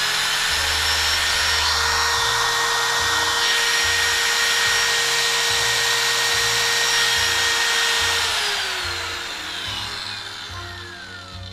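Hitachi 100 mm disc (angle) grinder, 560 W and 12,000 rpm, running free with no load: a steady high whine. About eight seconds in it is switched off and winds down, its pitch falling. It is a function test of a used machine, which runs smoothly and is judged "rất là ok".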